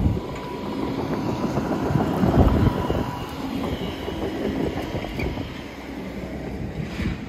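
Demolition machinery working behind the construction sheeting: a steady engine rumble with clattering, loudest about two seconds in.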